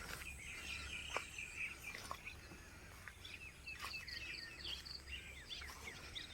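Insects trilling and birds chirping, with a few faint clicks and a steady low rumble underneath.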